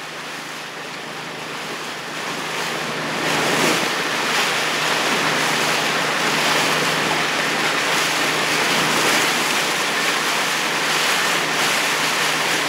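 Water rushing and splashing alongside a boat, with wind buffeting the microphone. It grows louder about three seconds in and then holds steady.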